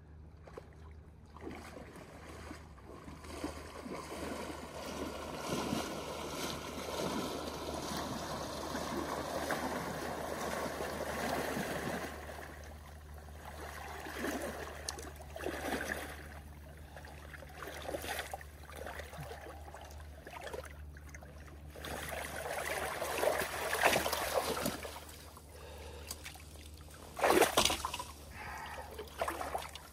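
Water sloshing and splashing around the legs of a person wading through a shallow river, getting louder as the wader comes closer, then separate splashes with a few sharp, loud ones near the end.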